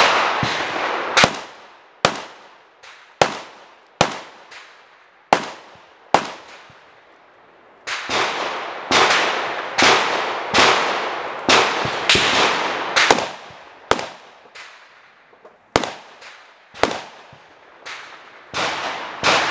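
Pistol shots in an irregular series, about two dozen sharp cracks each followed by a short echo, with a pause of about two seconds a third of the way through. Most come from a subcompact CZ 2075 RAMI 9mm pistol fired in a timed string; shots that keep coming after the string has ended are other pistols on the range.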